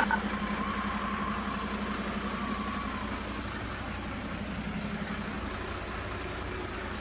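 Truck engine idling sound, a steady hum over an even, quick low throb.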